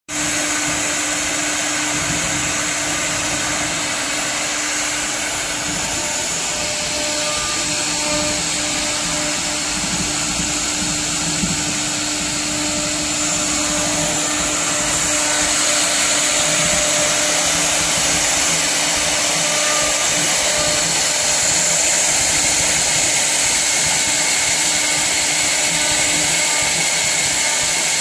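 Two HQD 6 kW air-cooled spindles of a double-head wood CNC router running at high speed and routing pockets into a wood board, a steady high whine with cutting noise. It grows a little louder about halfway through.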